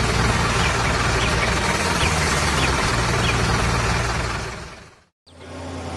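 Heavy truck engine running with dense road noise, fading out to a moment of silence about five seconds in. Another engine hum then starts up steadily.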